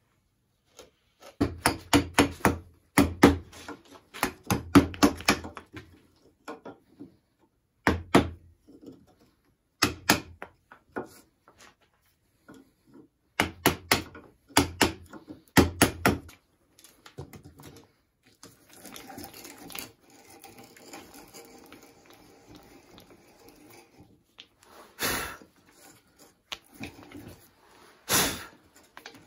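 A wooden mallet striking a chisel, chopping out a square hole in a wooden block, in quick bursts of blows. Later comes a stretch of steady scraping, then two single loud knocks near the end.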